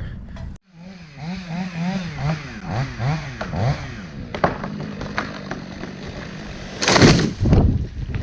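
A small two-stroke engine, most likely a chainsaw, revving up and down several times, then running steadily with a few knocks, and a loud burst of noise near the end.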